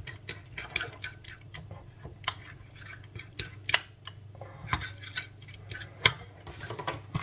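A kitchen utensil clinking and tapping irregularly against a bowl, breaking up tuna into beaten egg, over a low steady hum.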